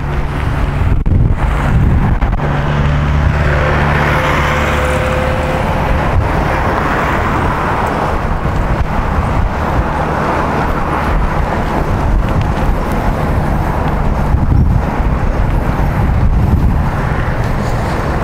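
Continuous rushing road and wind noise from riding along a paved street, with a steady low hum running underneath at times.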